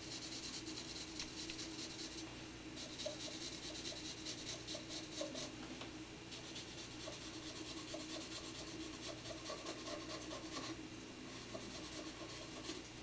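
Felt-tip marker scrubbing rapidly back and forth on the steel of a saw-blade knife blank, coloring in the edge bevel up to a scribed line as a guide for grinding. The scrubbing comes in four spells with brief pauses.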